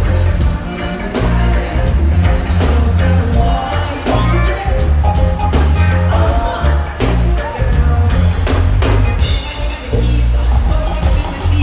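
Live band music through a loud concert PA: a heavy bass line and drums under a singer's voice on the microphone.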